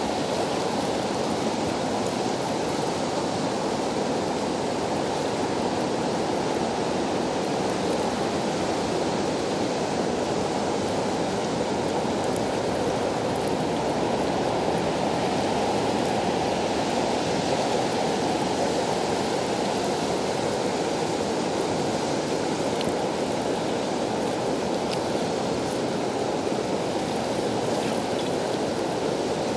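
River current flowing fast, a steady even wash of moving water.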